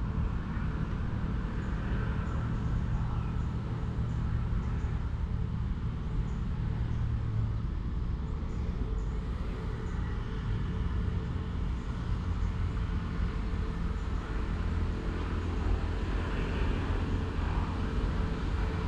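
A low, steady engine hum that holds evenly throughout, with no rise or fall.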